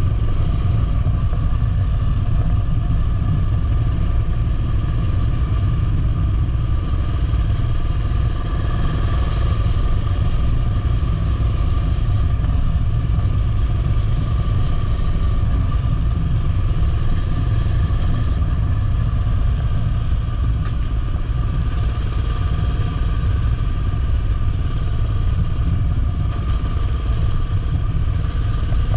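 Motorcycle riding at a steady pace, heard from on board: a heavy, even low rumble with a steady engine note and no change in speed.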